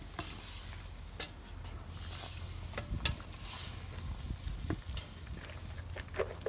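Meat sizzling as it fries in a cast-iron cauldron over a wood fire, stirred with a wooden spoon, with scattered sharp clicks and scrapes over the steady hiss.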